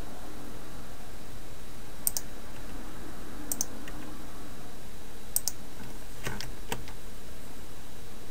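Computer mouse and keyboard clicks: a few sharp clicks, several in quick pairs, over a steady hiss.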